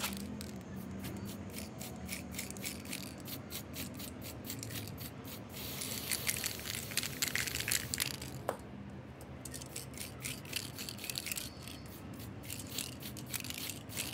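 Aerosol spray-paint can spraying the clock's pendulum: many short quick spurts, a steadier hiss lasting about two seconds a little past the middle, then more short spurts.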